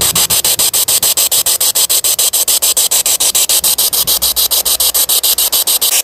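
Spirit box sweeping through radio stations: loud static hiss chopped into rapid even pulses, about ten a second, with no voice coming through.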